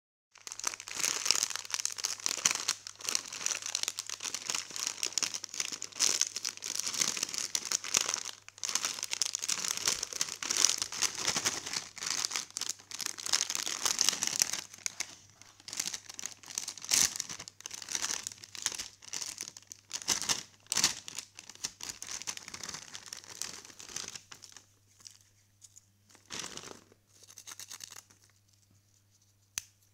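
Foil-lined plastic snack packet (Bingo Tedhe Medhe) crinkling and being torn open by hand, a dense crackling for most of the stretch. Near the end it thins to scattered rustles and clicks as the snack sticks are taken out.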